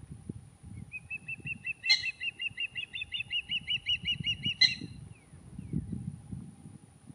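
Osprey calling: a rapid run of short, high chirps, about five a second, that grows louder and stops about halfway through. Two sharp clicks come during the call, the second one the loudest sound.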